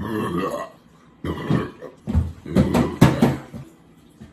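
A man belching after drinking soda: a run of short, rough burps in quick succession from about a second in, the loudest near the three-second mark.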